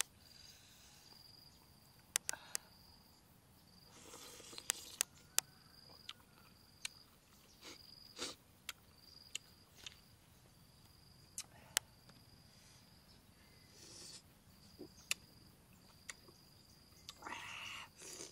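An insect trilling at a high pitch in short on-and-off bursts, with scattered sharp clicks and taps from handling food and utensils. Near the end comes a brief wet sucking sound as a piece of green lemon is sucked.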